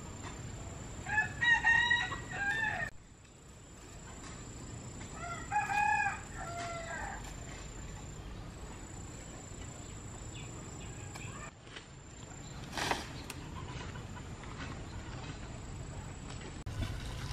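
Rooster crowing twice, each crow lasting about two seconds, over a low steady background. A single short sharp sound comes about thirteen seconds in.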